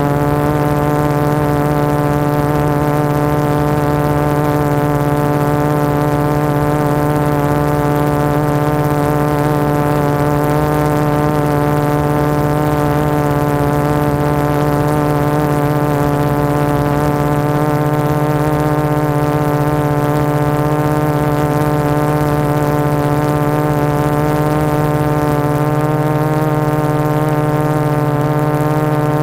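Quadcopter's four Multistar 2212 920kv brushless motors spinning 12x4.2 carbon-fibre propellers at hover: a steady buzzing hum with one unchanging pitch and many overtones, over a haze of propeller wash.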